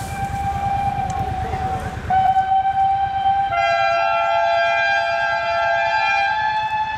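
Steam locomotive whistles blowing long, held notes. One whistle sounds from the start and grows louder about two seconds in, and a second, higher whistle joins about three and a half seconds in so that two notes sound together. A low rumble lies underneath in the first two seconds.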